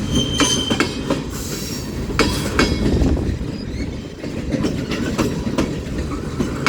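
Freight train cars rolling past close by: a steady low rumble with wheels clacking over the rail joints at an irregular beat. A brief high squeal is heard near the start.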